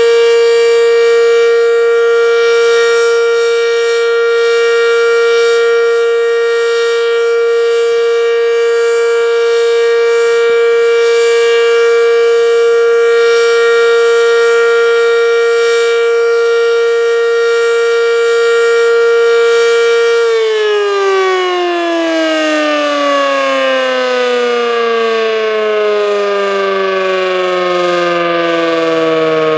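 Werden Electric B-115, a single-tone omnidirectional electric siren, sounding a loud, steady tone. About two-thirds of the way through it winds down, its pitch falling steadily to the end.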